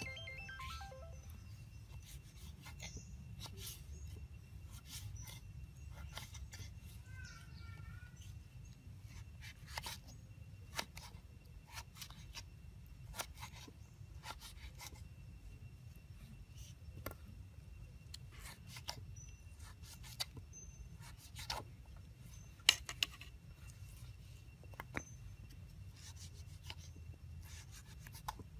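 A kitchen knife cutting raw potato slices into sticks on a wooden board: faint, irregular knocks and clicks of the blade through the potato and against the board, one sharper knock about three-quarters of the way through.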